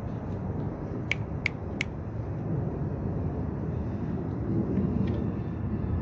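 Steady low outdoor background rumble, with three short, sharp, high clicks in quick succession between one and two seconds in.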